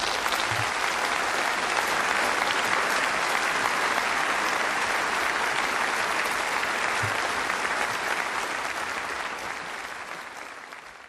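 Audience applauding steadily after a song, the clapping fading away near the end.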